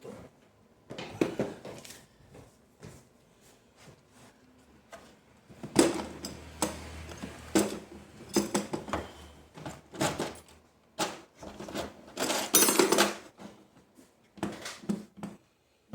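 Metal tools and small parts clattering as they are handled: a string of sharp clinks and knocks, busiest about six seconds in and again near thirteen seconds.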